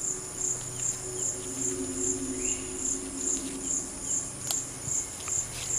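Insects chirping in a high-pitched pulsing rhythm, about two or three chirps a second, with a faint low steady hum beneath.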